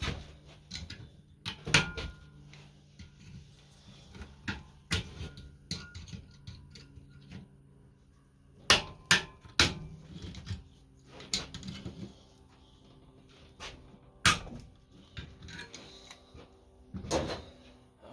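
Scattered sharp clanks and knocks of hand tools and metal parts being picked up and set down on a workbench, over a faint steady hum.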